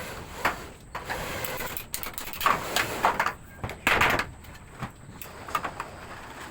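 Irregular knocks and scraping noises of objects being handled, the loudest a few sharp strokes about half a second, two and a half and four seconds in.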